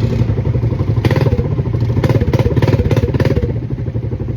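ATV (quad bike) engine running at a steady pitch, with a stretch of clattering and rattling knocks through the middle.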